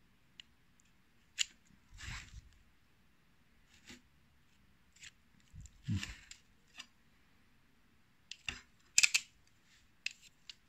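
Snap-off-blade utility knife slicing into a cactus stem, bevelling the edges of a graft cut: about nine short, crisp cuts and knocks, the loudest about nine seconds in.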